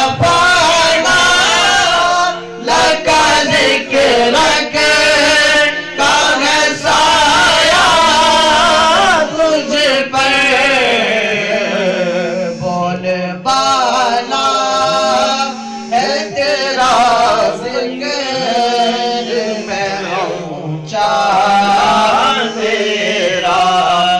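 Solo male voice singing an Urdu naat through a microphone in long, ornamented melodic lines. A low, steady drone is held underneath and shifts pitch in steps.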